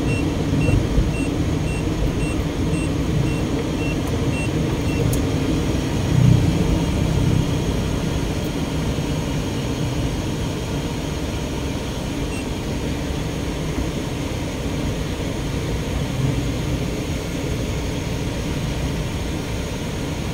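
Steady road and engine noise from inside a moving car. A short high beep repeats about twice a second and stops about four seconds in.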